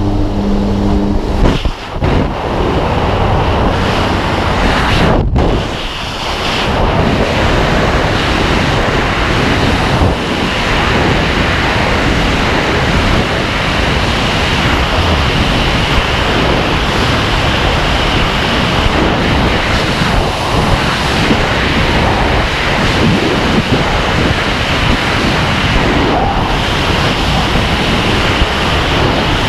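Freefall wind rushing over a helmet camera's microphone, a loud steady roar. For the first second or so the jump plane's engine drone comes through the open door before the jumper leaves the aircraft.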